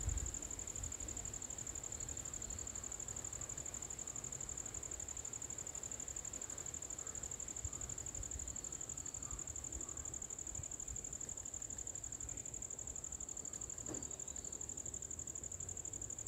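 A steady, high-pitched insect trill, pulsing rapidly and without a break, over a faint low rumble.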